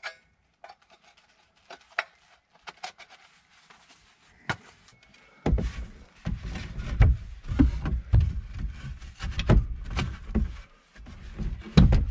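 Wooden 2x4 studs being handled and fitted into metal sawhorse brackets: light knocks and clicks at first, then from about halfway a run of heavy wooden thumps, knocks and scraping as the beam is worked into place.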